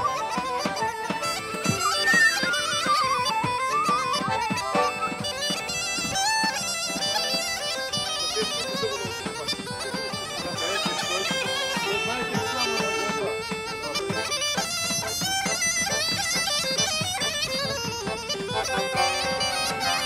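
Live folk music played on accordion and a woodwind: an ornamented, fast-moving melody over steady accordion chords and a rhythmic bass.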